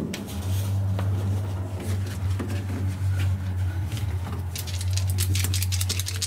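Steel roll-cage tubes being handled and fitted inside a car body, clicking and knocking against each other and the shell, the knocks coming thick and fast near the end. A steady low machine hum comes in about half a second in and runs underneath.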